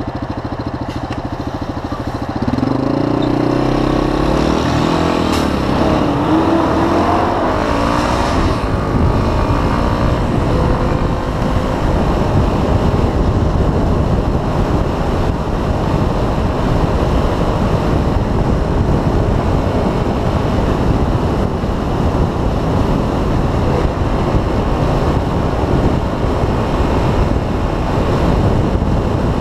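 Yamaha 250 dual-sport motorcycle's single-cylinder engine pulling away from a stop about two seconds in and revving up through the gears. It then runs at steady road speed, largely covered by heavy wind noise on the microphone.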